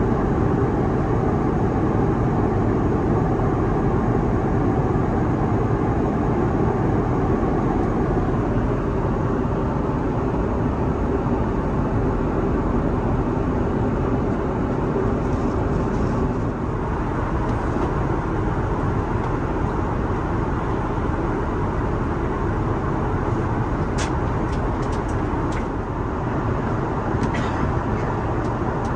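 Steady cabin noise of an Airbus A330-900neo in flight, the even drone of engines and rushing air, with a few faint clicks near the end.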